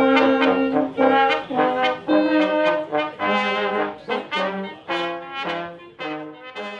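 Brass music with trombone and trumpet playing a lively run of notes, fading out near the end.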